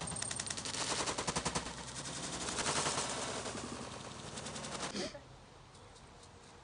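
A dog crawling through a fabric play tunnel: a rapid, rattling scrabble of claws and crinkling tunnel fabric, which stops abruptly about five seconds in and gives way to a much quieter background.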